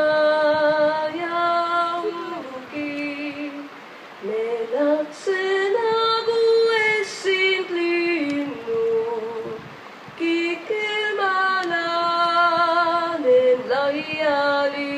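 A woman singing a slow Estonian folk song unaccompanied, in long held notes with vibrato, with short breaths between phrases about three and nine seconds in.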